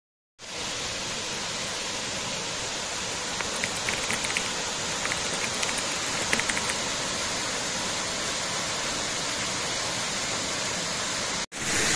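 Waterfall cascading over rock: a steady rushing of falling water that starts about half a second in and cuts off suddenly near the end.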